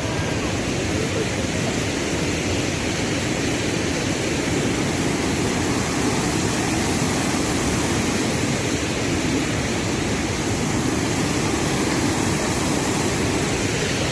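Steady rushing of the Bow River's white-water rapids, an even, unbroken wash of water noise.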